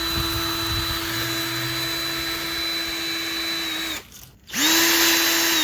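Cordless drill running steadily with its bit against an iPhone SE, stopping about four seconds in, then spinning back up half a second later. The bit is not getting through the phone's thicker metal side.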